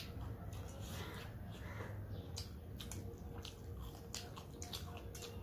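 Close-up chewing and mouth smacking from two people eating rice, saag greens and pork by hand, heard as many small, irregular wet clicks.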